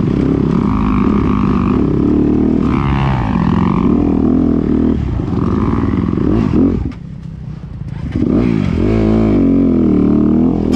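Honda CRF250RX dirt bike's single-cylinder four-stroke engine under the rider, revving up and down continuously while riding. Near the middle the throttle closes and the engine drops briefly, then revs back up in rising sweeps.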